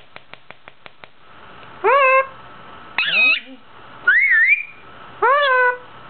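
Indian ringneck parakeet calling at its reflection: a quick run of sharp clicks in the first second, then four short, loud calls about a second apart, each rising and then levelling off, the third one wavering up and down.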